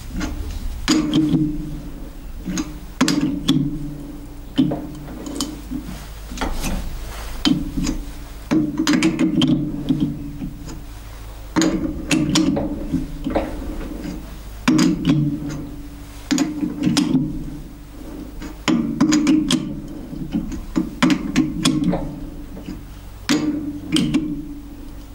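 Thread being cut by hand with a die in a tailstock die holder on a lathe, worked in short turns and backed off to break the chip: about a dozen bursts of grinding and clicks, each about a second long, with short pauses between them.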